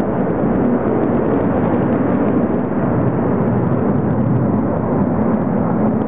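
Military jet aircraft flying over in formation: a loud, steady jet rush.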